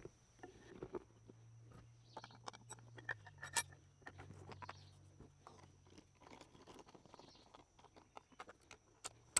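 Faint scattered clicks and light knocks as a shotgun's wooden stock, shim and small metal parts are handled and fitted back onto the receiver, with one sharper click about three and a half seconds in.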